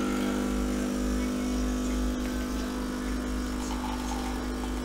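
DeLonghi Dedica espresso machine's vibratory pump buzzing steadily as it pulls a double espresso, coffee running into a glass mug. The machine has just been cleaned and runs smoothly.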